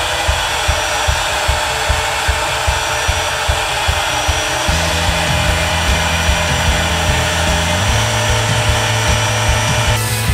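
Avid CNC router spindle running with a steady high-pitched hiss. Background music is underneath, with a low bass line that comes in about halfway through.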